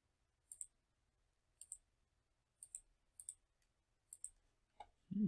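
Computer mouse button clicking quietly, each click a quick press-and-release pair, about five times at roughly one-second intervals. A short, louder low sound comes near the end.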